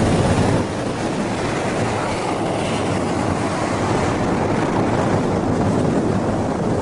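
Loud, steady road and wind noise from a car driving at speed, with tyre rumble and no clear engine note. The level dips slightly about half a second in.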